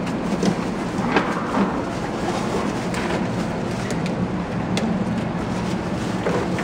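Steady low rumbling noise with a few scattered light clicks and rustles as puppies scramble over shredded-paper bedding in a wire crate.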